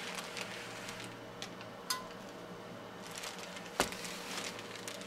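Steam iron being worked over fabric on a pressing table: quiet handling noise, a small metallic clink about two seconds in and a sharp knock a little before four seconds.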